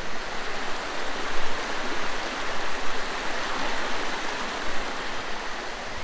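Stream water rushing steadily over rocks.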